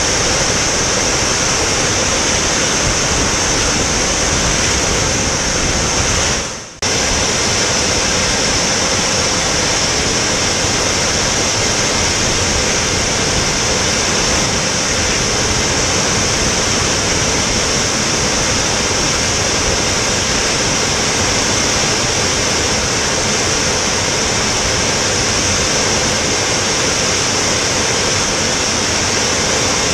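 Steady rush of airflow and engine noise picked up by a camera riding on the MAGMA drone in flight, with a strong high hiss. It fades out briefly about six and a half seconds in, then resumes abruptly.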